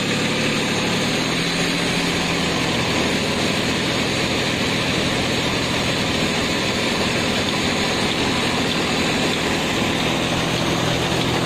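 Tractor engine running steadily at idle, powering the hydraulics that extend the sprayer boom.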